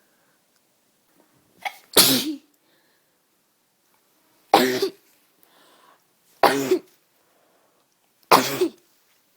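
A sick person coughing and sneezing: four loud, sudden bursts about two seconds apart, the first with a short lead-in just before it.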